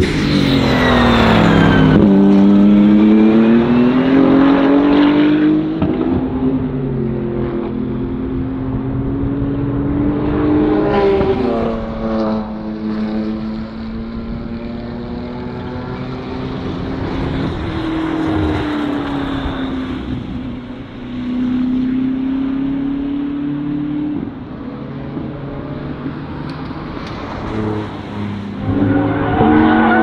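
BMW GT3 race cars passing at speed one after another, engines pulling up through the gears with quick shifts, the pitch dropping as each one goes by.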